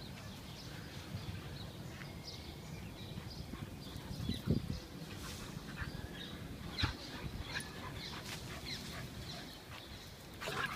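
Outdoor ambience of small birds chirping on and off over a low steady rumble, with a louder bump about four and a half seconds in and another about seven seconds in.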